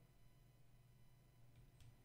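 Near silence: room tone with a faint low hum, and two faint clicks about a second and a half in.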